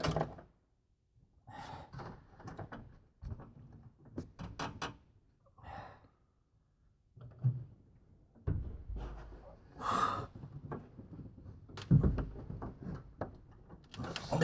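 Scattered knocks and clicks of hand tools working the throttle cable's firewall bolts on a 1990 Ford F-150, with louder rustling and a low rumble from about eight seconds in.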